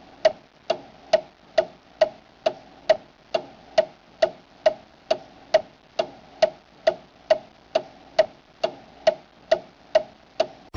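Clock ticking steadily, a little over two even ticks a second.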